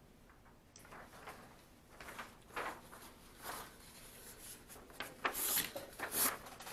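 Sheets of paper being handled on a desk: scattered light rustles and taps that grow into a louder, busier rustling near the end as a sheet is picked up and moved.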